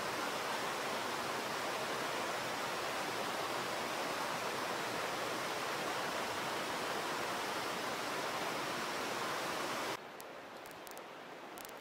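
Steady, even rushing noise with no distinct events. It cuts off abruptly about ten seconds in, leaving a quieter outdoor background with a few faint ticks.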